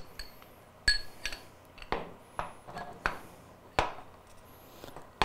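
Steel plungers and a clamp-style plunger coupling being handled and set down on a wooden table: a series of about seven sharp metal clinks and knocks, several with a short ring.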